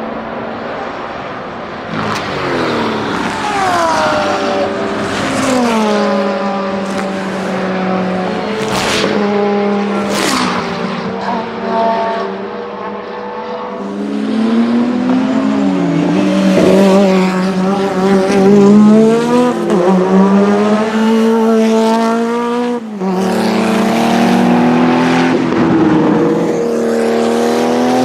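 Porsche 935 Kremer race car's turbocharged flat-six engine. Its note falls as the car slows, with two sharp exhaust bangs about a third of the way in. It then climbs again under hard acceleration through several gear changes, with a sudden drop at one shift near the end.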